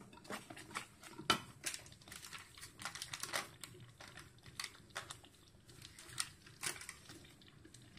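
Thickened jaggery payasam simmering in an aluminium pot, its bubbles breaking as faint, irregular pops and plops.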